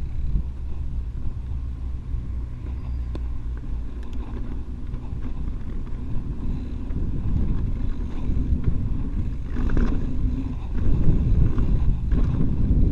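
Mountain bike rolling over a dirt singletrack trail: wind rushing over the action-camera microphone and low tyre rumble, with scattered clicks and rattles from the bike. It gets louder and rougher in the last few seconds.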